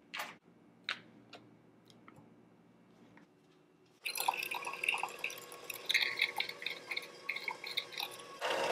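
A few faint clicks and taps as a knife cuts butter from its wrapper into a bowl. About four seconds in, an electric hand mixer starts suddenly and runs, its beaters creaming the butter in the bowl.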